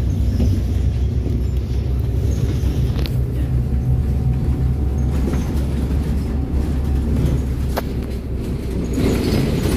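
Cabin sound of a Wright Gemini 3 double-decker bus under way: a steady low engine and road rumble, with a couple of sharp clicks, one about three seconds in and one near the end.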